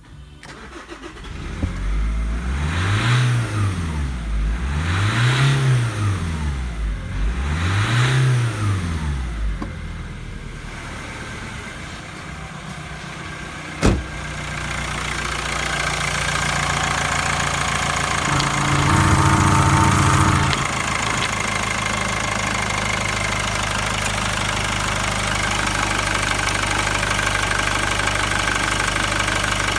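Nissan Primera P12's YD22DDT 2.2-litre four-cylinder turbodiesel starting about a second in, then revved up and let fall back three times before settling to idle. A single sharp knock comes near the middle, the revs are held up briefly a few seconds later, and the diesel then idles steadily.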